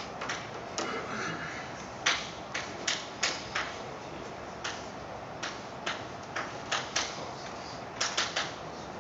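Chalk writing on a blackboard: an irregular run of sharp taps and short scratches as each stroke hits the board, some coming in quick bunches of two or three.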